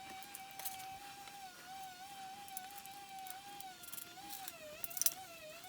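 A distant motor's steady high whine that wavers slightly and drops away in pitch near the end, with light metallic clinks of nuts, bolts and washers being handled.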